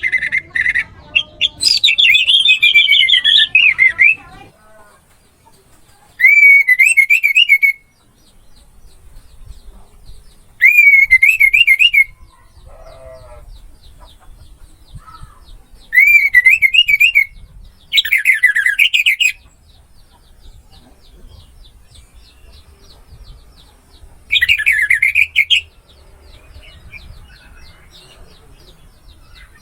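Orange-headed thrush (anis merah) singing in loud phrases of a second or two, made of quick, rapidly warbling notes that swoop up and down. There are about six phrases with pauses of a few seconds between them. A faint rapid ticking runs under the quieter gaps.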